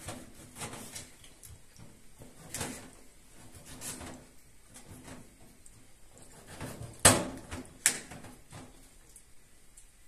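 Scattered knocks and clatters, the loudest a sharp knock about seven seconds in and another just under a second later.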